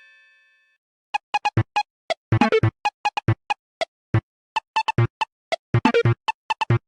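A Siemens Xelibri 6 ringtone: a quick melody of short, clipped synthesizer notes in an uneven rhythm, some with a low bass note, starting about a second in. Before it, the tail of the previous ringtone fades out.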